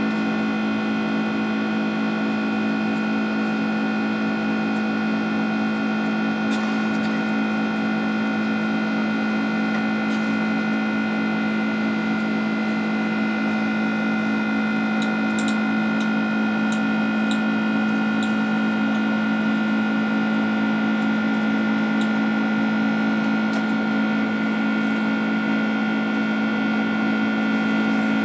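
Boeing 767-300ER's GE CF6-80C2 turbofan engines heard from inside the cabin at climb power after take-off: a steady deep hum with a steady higher whine over it.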